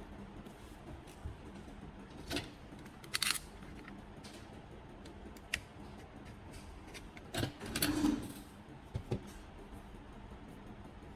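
A handful of separate clicks, taps and short clatters of small hard parts being handled, the loudest a sharp double click about three seconds in and a longer clatter near eight seconds, over a faint steady hum.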